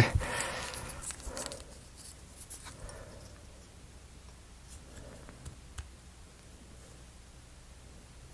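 Faint rubbing and scraping of wax being worked onto small laser-cut wooden model parts, with a few light clicks as the parts are handled.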